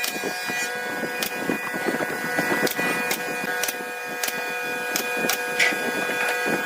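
Woodworking sounds: a steady hum of tones under irregular sharp clicks and knocks of tools on wood.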